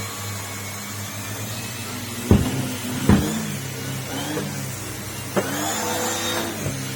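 Numatic Henry vacuum cleaner running with a steady hum that shifts in pitch partway through, with three sharp knocks a couple of seconds in, about three seconds in and near five and a half seconds in.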